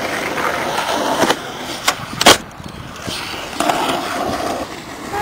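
Skateboard's hard wheels rolling on rough asphalt, a steady grinding rumble. Several sharp clacks of the board cut through it, the loudest about two seconds in.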